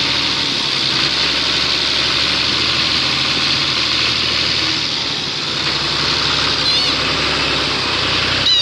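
New Holland 480 Special tractor's three-cylinder diesel engine running steadily; the tractor moves off near the end.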